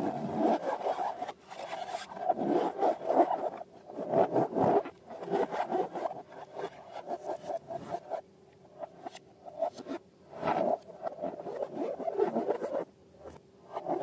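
Slime being handled: irregular spells of squishing and rubbing, dense with small crackling clicks, with a quieter stretch about two-thirds of the way through.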